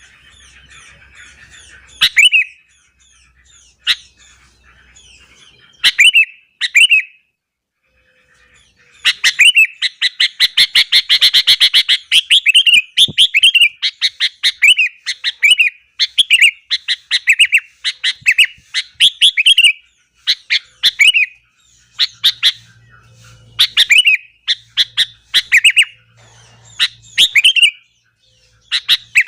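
Sooty-headed bulbul (kutilang) singing in short, loud bursts of quick chirps, sparse at first, then a long rapid run of notes about a third of the way in, followed by bursts repeated roughly once a second.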